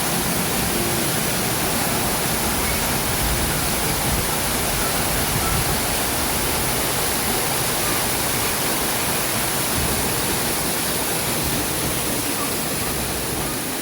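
Steady rushing of falling water, as from a waterfall, holding an even level throughout.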